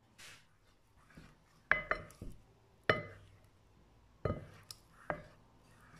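A spoon clinking against the side of a glass mixing bowl about six times, each clink sharp with a short ring, as flour is stirred into the yeast liquid for a dough batter. A brief soft rustle just before the clinks.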